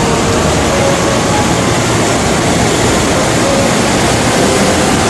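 Floodwater of a flash flood rushing in a steady, loud torrent.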